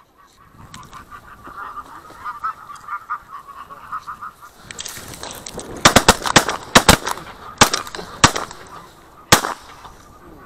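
Geese honking as a flock passes overhead, then a volley of shotgun shots at them: about five to seven sharp cracks between about 6 and 9 seconds in, from two hunters' guns firing at geese about 40 metres out.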